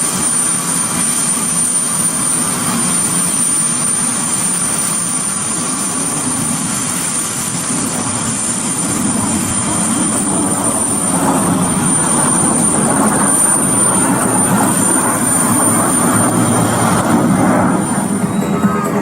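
Airplane engine noise: a steady, noisy rumble with a thin high whine over it that stops near the end.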